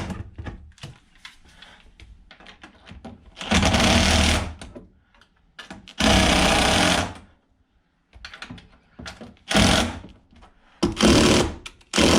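Power drill-driver running screws tight in short runs, the longest about a second each, five or so in all, with small handling clicks between.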